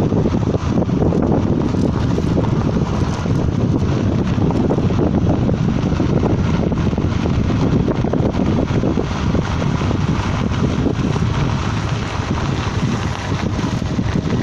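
Wind buffeting the microphone over the steady running of a Komatsu GD555 motor grader's diesel engine.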